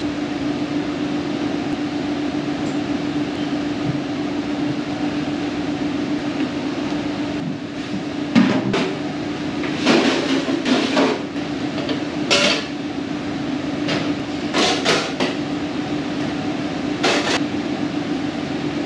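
Kitchen clatter: pots, pans and utensils knocked and set down at scattered moments, mostly in the second half, over a steady low hum.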